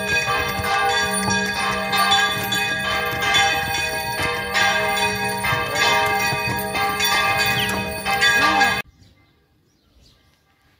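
Church bells ringing, strokes overlapping into a continuous ringing, until the sound cuts off abruptly about nine seconds in, leaving near silence.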